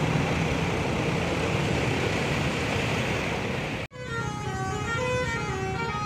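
Road traffic passing close by, a truck's engine and tyres. Then, after a sudden cut about four seconds in, a bus's Basuri telolet horn plays a melody of short notes stepping up and down.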